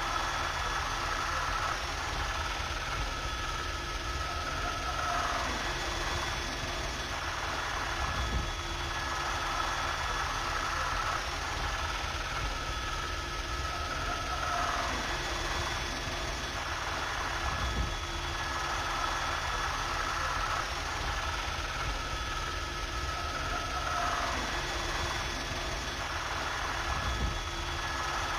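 Steady helicopter engine and rotor noise heard from inside the cabin. A thin high tone comes and goes every nine or ten seconds.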